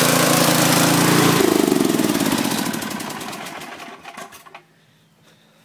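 Snapper riding mower's 8 hp engine running steadily, then cut off about a second and a half in, its pitch falling as it winds down and stops with a few last pulses by about four and a half seconds in.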